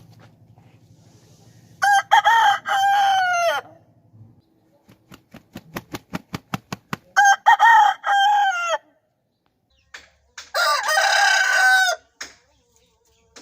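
Aseel roosters crowing three times, each crow lasting under two seconds and dropping in pitch at the end. A quick run of sharp claps, about seven a second, comes before the second crow.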